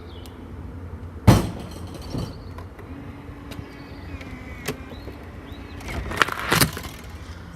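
A sharp click about a second in, then the Nuki smart lock's electric motor turning the key with a steady hum for a couple of seconds, followed near the end by a clatter as it draws back the latch to unlock the door.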